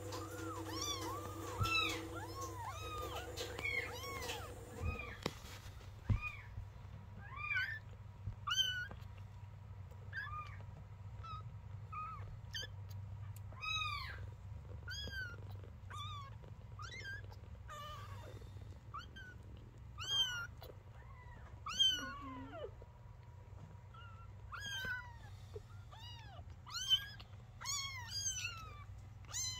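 Young kittens mewing over and over, short high calls that rise and fall in pitch, often overlapping and about one a second. A steady low hum runs underneath.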